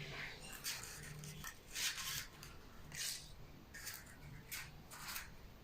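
A utensil scraping batter off into a madeleine pan, in a series of short rasping scrapes roughly one a second.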